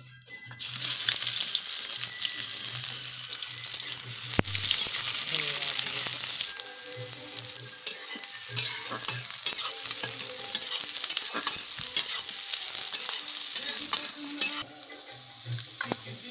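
Sliced onions hitting hot oil in a metal kadhai, sizzling loudly from the moment they go in, about half a second in, and stirred with a spatula that clicks and scrapes against the pan. The sizzle eases off partway through and drops again near the end as the onions soften.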